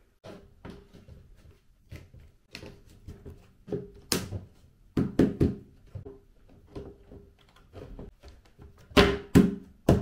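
A series of knocks and thuds as a white shelf unit is handled and set in place, the loudest a few seconds in and again near the end.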